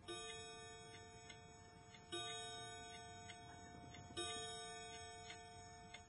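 Mantel clock striking the hour: a chime struck three times about two seconds apart, each strike ringing on and fading, with faint ticks between.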